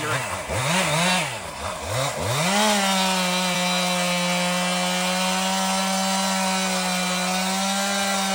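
Toro hydraulic stump grinder running on a mini skid steer, its cutting wheel bogging down and recovering three or four times as it bites into a stump, then spinning up and running at a steady, even pitch from about three seconds in.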